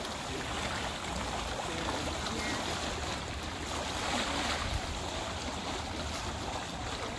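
Small river waves lapping and washing against a rocky shoreline, a steady wash of water with a low rumble underneath.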